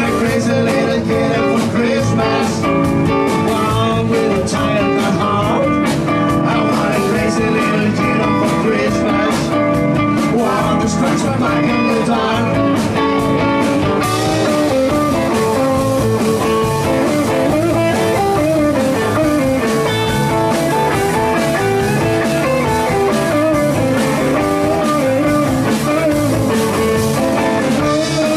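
Live rock-and-roll band with a blues feel playing an instrumental stretch: electric guitars over drums, with no singing.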